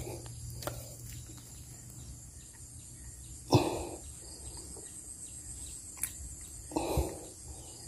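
Two brief rustling thumps in dry grass, one about halfway and one near the end, as a landed snakehead is grabbed and flops on the ground. Crickets chirr steadily throughout.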